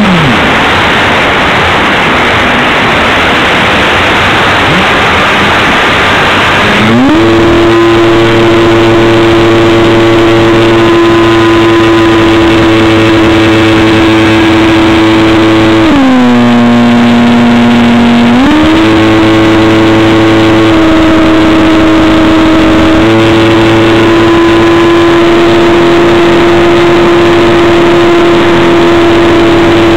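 Electric motor and propeller of a Stryker F-27C RC flying wing, heard from a camera strapped to the plane. At first the motor is off and only the wind rushes past. About seven seconds in, the motor whine climbs and then holds steady. It dips lower in pitch for a couple of seconds past the middle, then comes back up to a steady whine.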